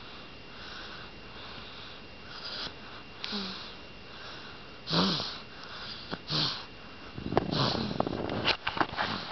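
A baby's breathing in soft, noisy sniffs and puffs, with a few short grunts that get louder over the second half and a cluster of sharp clicks near the end.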